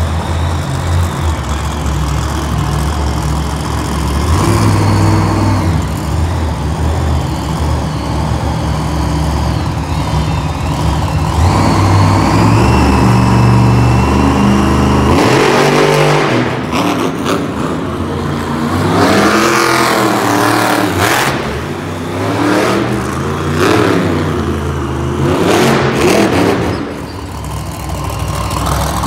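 El Toro Loco monster truck's supercharged V8 engine running loud, with a high whine. From about halfway through, it is revved up and down over and over, the pitch rising and falling in repeated swoops.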